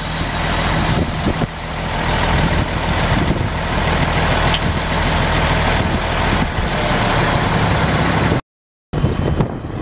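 Caterpillar C12 inline-six diesel of a 2000 Peterbilt 377 semi truck running steadily at idle. The sound cuts out for about half a second near the end, then resumes.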